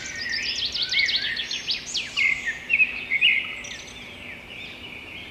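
Small birds chirping and twittering, many quick sweeping calls overlapping, busiest in the first three seconds and thinning out after that.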